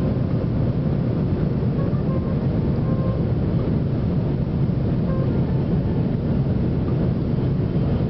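Steady low cabin rumble of an Airbus A330-300 in flight on its landing approach: engine and airflow noise, heard from a window seat over the wing.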